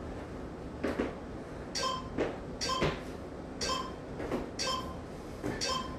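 Feet thudding on rubber gym flooring during burpees and jumps, about once a second, several landings followed by a brief squeak.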